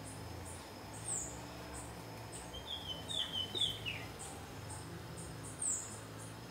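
Outdoor insect chirping steadily, about two high pulses a second, while a bird calls: a short run of three or four stepped notes around the middle and two quick high down-slurred chirps, about a second in and near the end. A faint low steady hum lies underneath.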